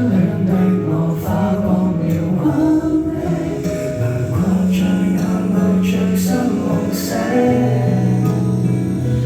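Music playing: a song with singing in long held notes over an instrumental accompaniment.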